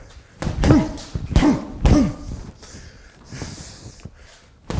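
Gloved punches landing on a hanging TKO heavy bag: three heavy thuds in quick succession in the first two seconds, each with a short dull boom from the bag. A softer knock and a brief hiss of breath or footwork follow about three and a half seconds in.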